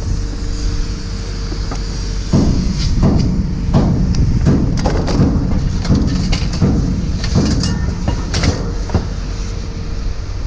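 A run of sharp metal clanks and knocks, about one or two a second, as scrap metal pieces are handled and dropped, over a steady low engine rumble.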